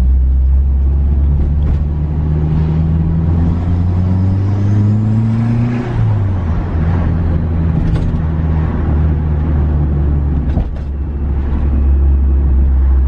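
Turbocharged 3G Mitsubishi Eclipse engine heard from inside the cabin, making a light part-throttle pull in second gear. The revs rise steadily for about three seconds, drop suddenly about six seconds in, then settle to steady cruising.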